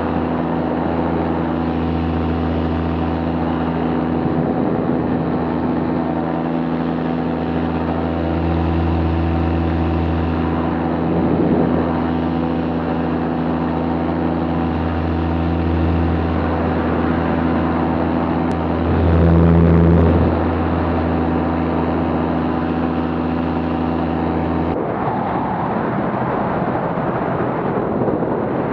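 Paramotor engine and propeller running steadily in flight, with a brief rise in throttle about twenty seconds in. Near the end the engine note cuts out abruptly, leaving only rushing wind noise.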